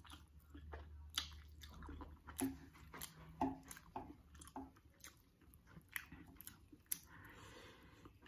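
Close-miked chewing of a mouthful of spicy instant noodles: wet mouth clicks and smacks, a dozen or so sharp ones at uneven intervals, fairly faint.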